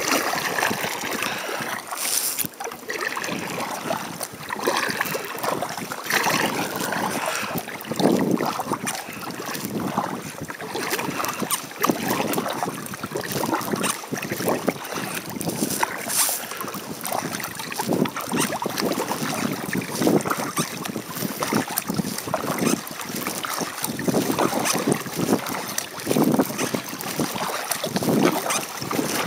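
Double-bladed kayak paddle strokes dipping and splashing in the water, repeating about every two seconds, with wind buffeting the microphone.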